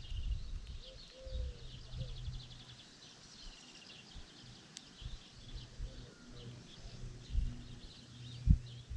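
Small birds chirping and trilling, with low rumbling knocks and a sharp thump about eight and a half seconds in.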